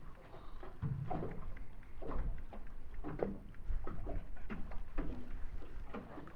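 Water slapping and knocking against the hull of a small boat at irregular intervals, about once a second.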